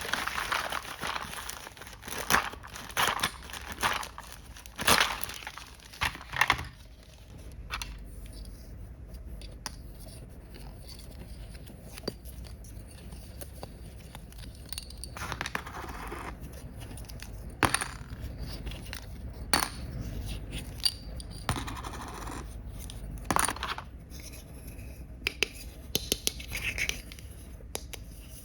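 Hands handling a plastic toy cash register and its packaging: scattered sharp clicks, taps and brief rustles, busiest in the first several seconds and sparser after.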